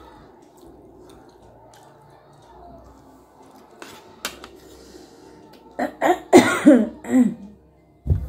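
A woman coughing, a quick series of coughs starting about six seconds in, after a quiet stretch with two faint clicks.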